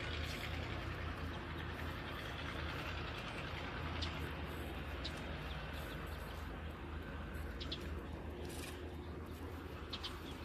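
Distant excavators and dump trucks at work: a steady low diesel-engine rumble, with a few short high bird chirps.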